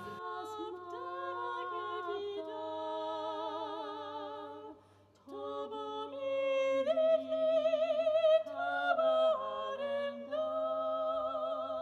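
Small mixed a cappella vocal ensemble, men's and a woman's voices, singing long held chords in close harmony with vibrato on the sustained notes. The voices break off briefly about five seconds in, then come back on a new chord.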